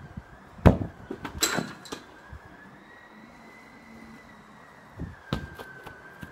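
Sharp thuds of a football being kicked and handled: one about two-thirds of a second in, a quick cluster around a second and a half, and another a little after five seconds.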